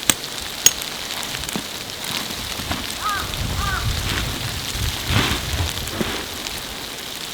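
A hand tool scraping and prodding into gritty, stony ground: steady crunching with a few sharp taps near the start, where it meets something hard that may be a stone.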